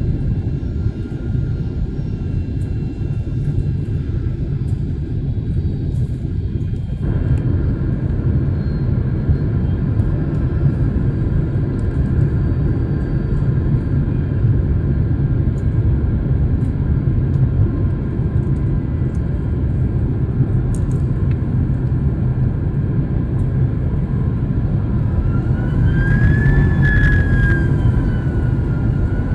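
Steady rumble of a jet airliner's cabin in flight. About a quarter of the way through it suddenly grows fuller. Near the end a whine glides up and down in pitch.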